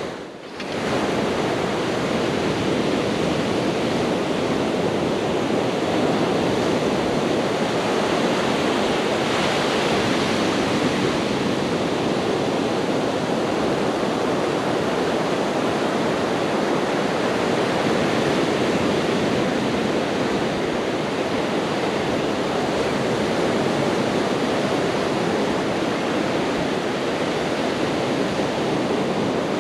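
Ocean surf washing onto a beach: a steady, even rushing noise.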